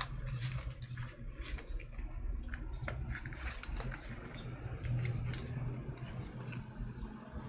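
Hands squeezing and kneading white slime and pressing it into a thin clear plastic tub: a run of irregular sticky clicks and crackles, over a low steady hum.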